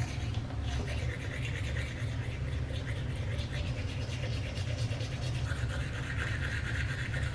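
Manual toothbrush scrubbing teeth with quick back-and-forth strokes, a steady wet scratching, over a steady low hum.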